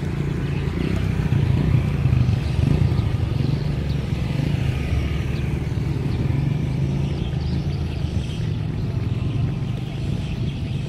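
An engine running steadily at low revs, a continuous low drone.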